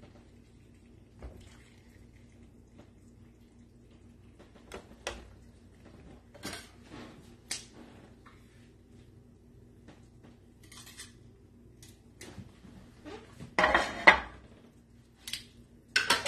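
A serving utensil clinks and scrapes against a stainless steel sauté pan and a ceramic plate as pasta and steak are plated. The knocks are scattered, with the loudest cluster near the end, over a faint steady low hum.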